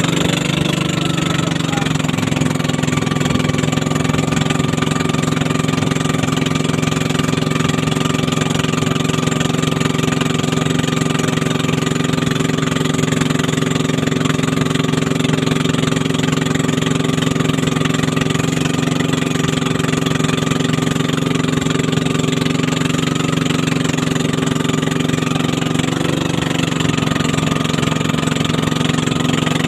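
Small motorboat's engine running steadily under way, with water rushing and splashing along the hull; the engine note shifts slightly about a second in and again a few seconds before the end.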